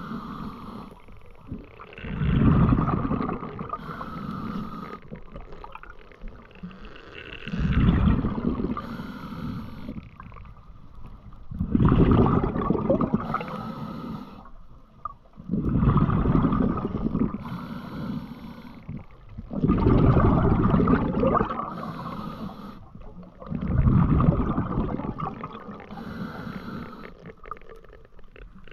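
Scuba diver breathing through a regulator underwater. Loud rushing bursts of exhaled bubbles come about every four seconds, alternating with the thinner hiss of each inhalation through the regulator.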